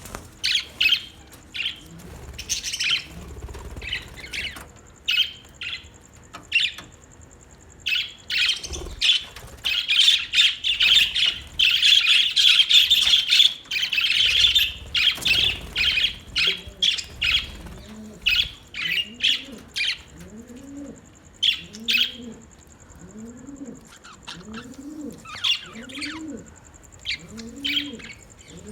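Budgerigars chirping and chattering in short high calls, thickest in the middle. In the second half a low cooing call repeats about once a second underneath them.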